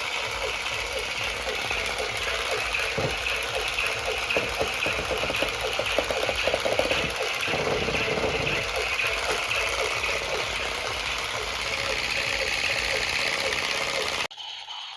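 A small motor running with a buzzing rattle, steady throughout and cutting off suddenly near the end.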